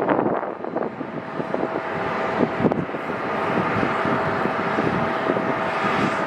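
Jet airliner engines heard close by, a steady noise with a constant tone in it, with wind buffeting the microphone in the first second or so.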